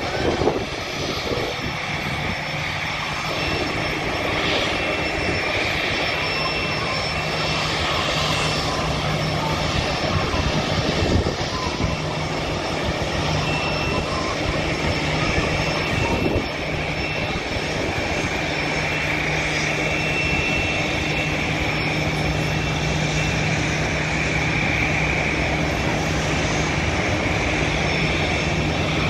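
Jet airliner engines idling: a steady rumble with a high whine held throughout.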